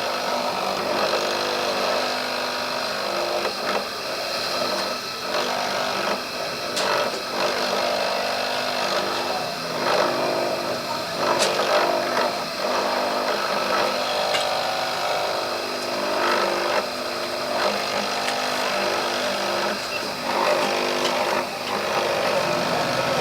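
A small power tool running steadily, with a few sharp clicks and knocks along the way.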